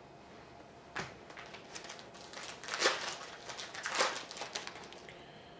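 Foil wrapper of a trading card pack crinkling as the pack is torn open and the cards are handled, in a few short rustles and clicks.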